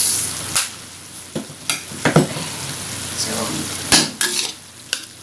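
Ground beef mixture sizzling in a stainless steel wok while a spatula stirs it. Sharp scrapes and clacks of the spatula against the pan come at irregular moments, the loudest about four seconds in.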